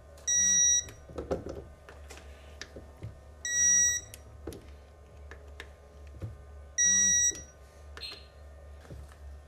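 Digital torque wrench giving three short, high beeps about three seconds apart, each one signalling that a bolt has reached the set torque of 10 Nm. Light metal clicks from the wrench come between the beeps.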